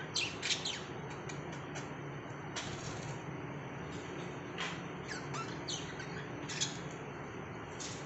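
Budgerigars chirping: short, sharp high calls at irregular intervals, over a steady low background hum.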